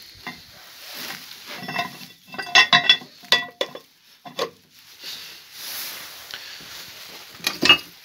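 Steel clutch discs of a Shifeng 240 mini-tractor clinking against each other and the clutch basket as they are fitted by hand: a series of ringing metal clinks, clustered about two and a half to three and a half seconds in, with another near the end.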